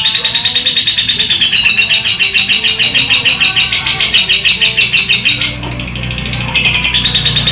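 Lovebird singing a long, fast chattering trill of rapidly repeated high chirps, breaking off briefly about five and a half seconds in and then resuming. Hobbyists take this kind of song as a sign that the bird is likely to develop 'konslet', a long continuous chatter.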